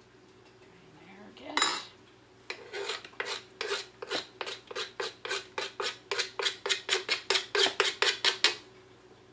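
A metal kitchen utensil scraping in quick, regular strokes, about four a second, growing faster and louder before stopping, after a single louder swish near the start.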